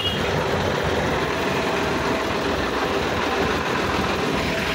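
Sonalika DI 745 III tractor's diesel engine idling steadily.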